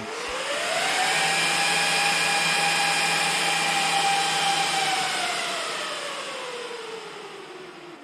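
Dell rack server's cooling fans spinning up at power-on: a whine that rises in pitch over about a second, holds at full speed for a few seconds, then slowly falls in pitch as the fans slow down.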